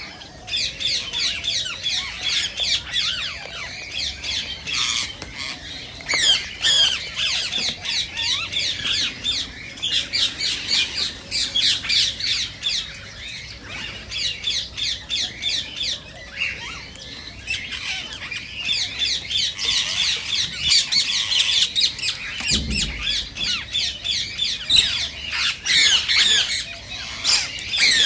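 Green Indian ringneck parakeets calling: rapid runs of short, shrill, high-pitched calls, several a second, with brief lulls between the runs. A short low bump about two-thirds of the way through.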